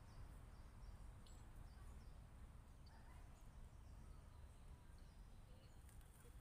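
Near silence: faint outdoor ambience, a low steady rumble with faint high chirps repeating a few times a second in the first second or so and again near the end.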